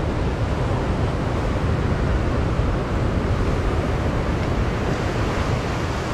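Sea surf washing on the shore, mixed with wind buffeting the microphone: a steady rushing noise with a heavy low rumble.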